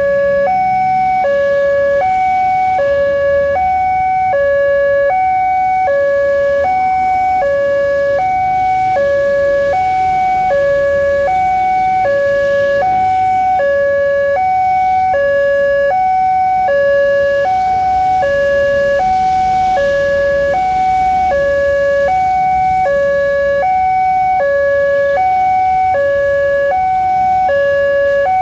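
Railway level-crossing warning alarm sounding, alternating evenly between a high and a low tone without a break: the signal that a train is approaching and the crossing is closed.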